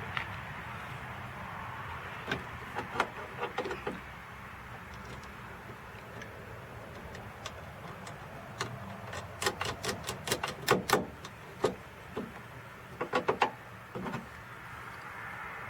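Scattered sharp clicks and clinks of tools and parts being handled inside an open car door, with a quick run of clicks about two-thirds of the way through and a few more soon after.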